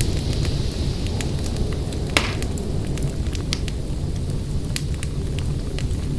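Wood fire crackling in a fireplace: irregular small pops and snaps over a steady low rumble, with one louder pop about two seconds in.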